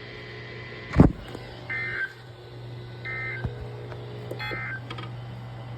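A single sharp thump about a second in, then three short electronic beeps about a second and a half apart, over a steady low hum.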